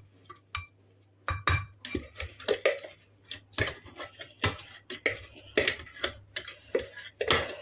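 A spatula scraping and knocking against the inside of a food-processor bowl, emptying chopped vegetables into a glass bowl: a string of irregular knocks and scrapes, several a second.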